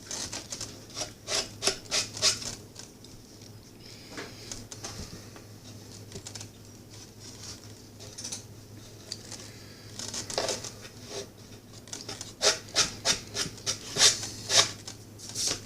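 Hand tool scraping back and forth on wood in quick strokes, about three a second: a short run near the start and a longer one near the end. A low steady hum runs underneath.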